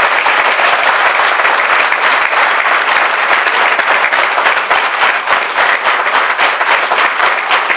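Audience applauding: a dense, steady round of clapping that grows more ragged near the end, with single claps standing out.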